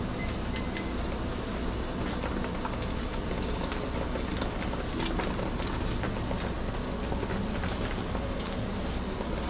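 Skewered eel fillets sizzling over a glowing electric grill, with scattered sharp crackles and clicks over a steady low hum.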